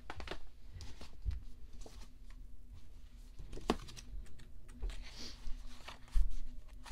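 Paper handling: a softcover photo book being opened and its pages turned, with scattered rustles and light taps. There is a heavier thump about six seconds in.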